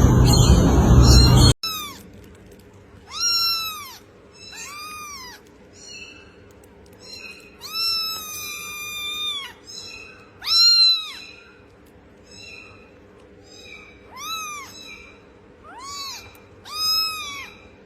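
A kitten mewing repeatedly: about a dozen high-pitched mews, each rising and then falling in pitch, mostly short with one drawn-out mew about eight seconds in. It follows a loud noisy sound that cuts off suddenly about a second and a half in.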